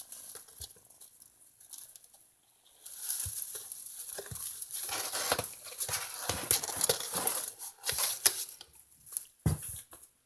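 Kittens scrambling and scratching about in a cat house: a rustling, scratching noise with many sharp clicks. It starts about three seconds in and stops shortly before the end.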